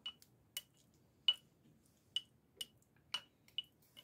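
A canning debubbler tool clicking lightly against the inside of a glass canning jar as it is worked down through packed chicken pieces to release trapped air before sealing: about eight short, sharp clinks, irregularly spaced, each with a brief ring.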